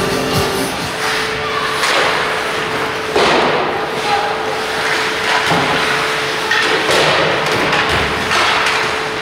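Ice hockey play in a rink: sharp knocks of sticks and the puck against sticks and the boards, with the loudest knock about three seconds in, over the steady hum and noise of the hall.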